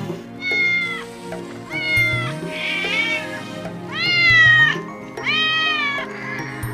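Domestic cat meowing: about five separate meows of under a second each, rising then falling in pitch, over steady background music.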